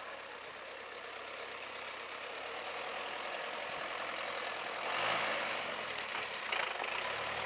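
Engine of an old 4x4 off-roader pulling slowly across dirt, growing louder as it approaches and loudest about five seconds in.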